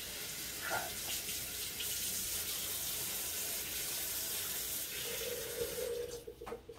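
Kitchen faucet running water into a stainless steel sink. It starts abruptly and is shut off near the end.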